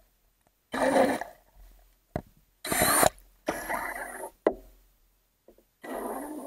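Water sloshing against an underwater action camera's waterproof housing: muffled, noisy surges about a second long, four of them, with short quiet gaps between.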